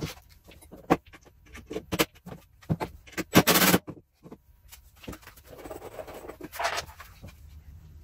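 Tools and wood being handled on a wooden workbench: a cordless drill picked up and moved among loose boards, with a string of sharp knocks and clicks and a short, loud, harsh clatter about three and a half seconds in.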